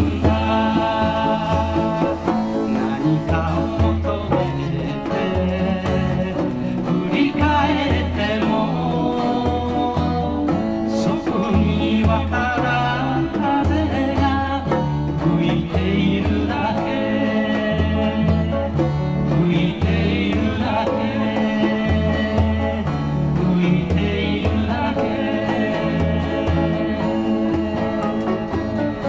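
Live performance of a Japanese folk song: a man singing to his own acoustic guitar strumming, with keyboard accompaniment.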